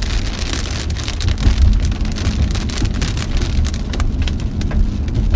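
Rain hitting a moving car, heard from inside the cabin: many separate drop strikes over a steady low rumble of the car on the road.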